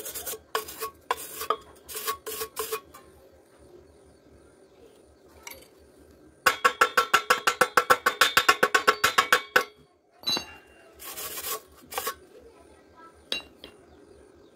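Metal striking thin steel square tubing with a ringing clang: a few separate knocks, then a fast run of taps, several a second, lasting about three seconds, then a few more knocks near the end.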